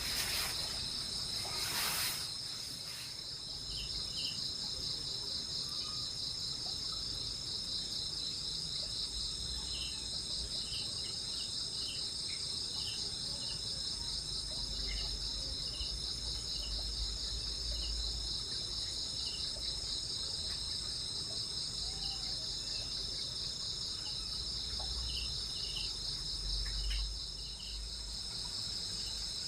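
Night chorus of crickets and other insects: a steady, high, fast-pulsing trill, with scattered short chirps over it. Two brief rustling noises come in the first couple of seconds.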